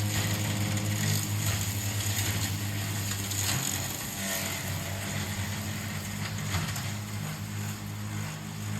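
Battery-electric remote-control lawn mower running, a steady low motor hum with scattered crackling clicks as it cuts through grass and brush.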